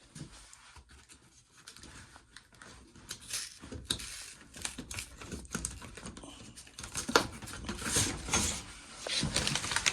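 An air filter being handled and slid in its slot: irregular crinkling and scraping with light knocks, busier in the second half.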